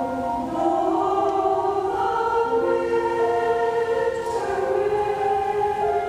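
Mixed choir of men and women singing held chords that move to new pitches every second or so.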